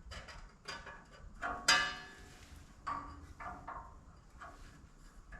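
Light metallic clanks and knocks of sheet aluminium and metal tools being handled at a sheet-metal brake, about eight in all, the loudest a ringing clank a little under two seconds in.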